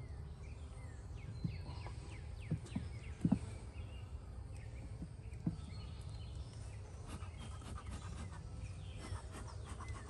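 Empty wooden hive body knocking dully a few times as it is lowered and settled onto the beehive over a jar feeder, mostly in the first half, the loudest about three seconds in. Birds chirp in short falling calls over a steady low hum.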